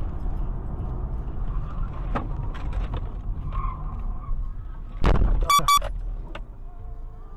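Steady road and engine rumble of a car driving on a highway, then a sudden loud burst and two short car-horn beeps about five and a half seconds in.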